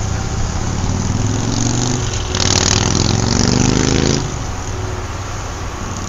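A motor vehicle engine in street traffic revving up over a steady low engine hum. Its pitch climbs for about two and a half seconds, then it stops abruptly about four seconds in.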